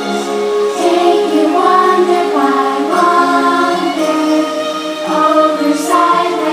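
Music with a choir singing in long held notes.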